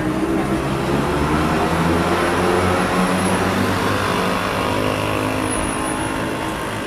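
A motor engine's steady drone, a low hum with a rumble above it, loudest a few seconds in and easing a little toward the end.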